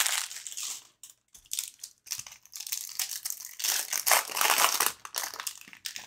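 Foil wrapper of a 2021-22 Upper Deck CHL hockey card pack crinkling as it is torn open by hand. The crinkling comes in irregular bursts, loudest at the start and again around four seconds in.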